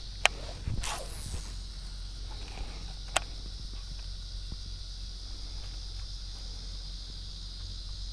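Insects buzzing steadily and high-pitched in the summer heat, over a low steady rumble. A few sharp clicks stand out, the loudest about three seconds in.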